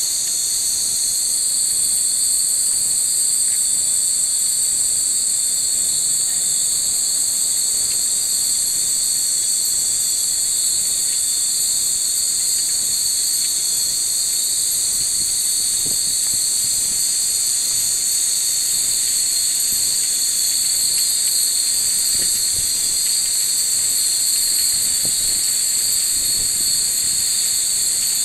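A steady, high-pitched chorus of summer insects droning without a break.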